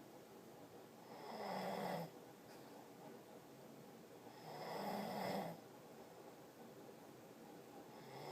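Snoring in slow, regular breaths: two snores about three and a half seconds apart, each lasting about a second with a low buzzing rattle, and a third starting near the end.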